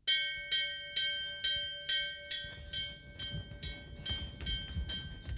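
Temple bell struck over and over, a little more than two strikes a second, each stroke ringing on. The strokes are loudest at first and grow fainter after about two and a half seconds. Soft low thuds of running footsteps come in under them in the second half.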